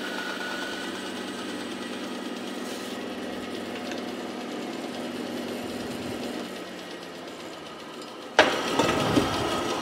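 Bandsaw running with a steady hum as its blade finishes a cross cut through a wooden block. The hum drops away a little after six seconds, and near the end there is a sudden sharp knock followed by clatter.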